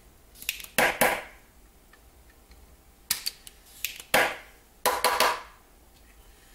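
Sharp clacks and scrapes from a handheld desoldering iron (solder sucker) being worked between solder joints. They come in two clusters, a pair about a second in and several more from about three to five seconds in.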